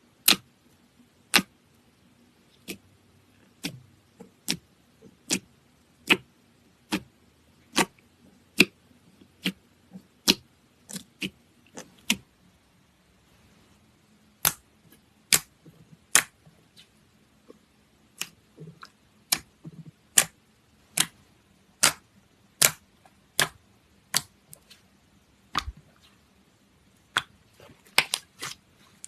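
Slime being pressed and squeezed by hand, giving sharp pops roughly once a second, with a quick run of several pops near the end.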